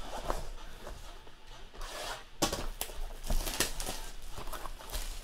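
Clear plastic shrink wrap on a trading-card box being slit with a box cutter and torn off, crinkling and rasping with sharp crackles. It gets louder about two and a half seconds in.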